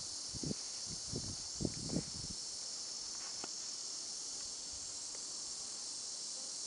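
Steady high-pitched drone of insects in the surrounding vegetation, with a few soft low thumps in the first two seconds.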